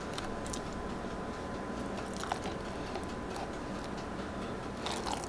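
Faint soft squishes and a few light clicks of a metal spoon scooping mayonnaise from a jar and dropping it into a bowl of sour cream, over a steady low background hiss.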